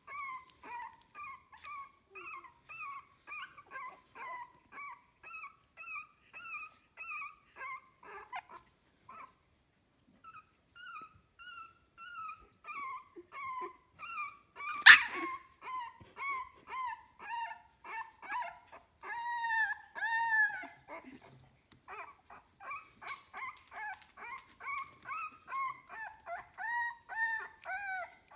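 Very young Staffordshire Bull Terrier puppies whimpering: a run of short, high squeaky cries at about three a second, pausing briefly about a third of the way in and growing louder for a few cries past the middle. A single sharp click, the loudest sound, comes about halfway through.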